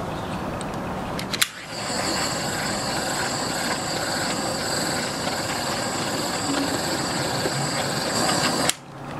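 Small butane torch lit with a click about a second and a half in, then burning with a steady hiss and a high whistle while it shrinks heat-shrink tubing over a soldered wire splice. The flame shuts off suddenly shortly before the end.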